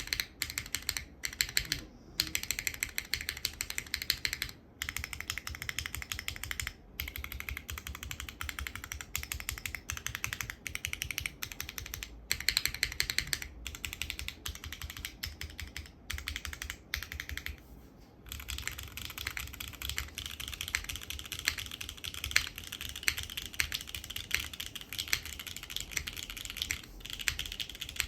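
Custom mechanical keyboard typing: Cream Joys frankenswitches (NovelKeys Cream top housing, Gateron CJ stem, Gateron bottom housing, lubed) on a polypropylene leaf-spring plate with GMK Nord keycaps and no foam, keys clacking in fast runs with short pauses. After a brief pause about eighteen seconds in, keys are pressed along the rows together with the spacebar.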